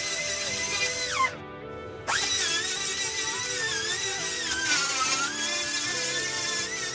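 High-pitched whine of an electric grinder with background music. The grinder cuts off about a second in, spins back up a second later, and sags in pitch for a moment as it loads against the metal.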